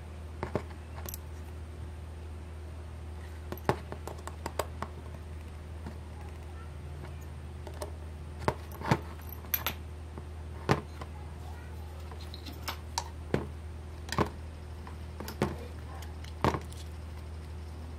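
Small hex screwdriver and screws clicking against a 3D-printed RC front-axle assembly, a string of irregular light ticks and taps, over a steady low hum.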